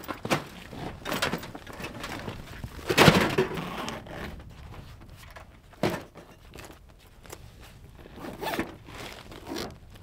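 A heavy fabric carry bag being handled and packed by hand: rustling with scattered knocks, the loudest thump about three seconds in and a sharp knock just before six seconds, quieter handling after.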